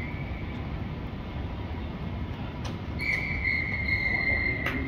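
A referee's whistle gives one long, steady blast starting about three seconds in, over a steady low background rumble.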